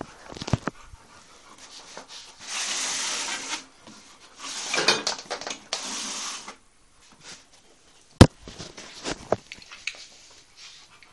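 American Bulldog sniffing hard in two long breathy bursts, with scattered small clicks and one sharp knock a little past the middle.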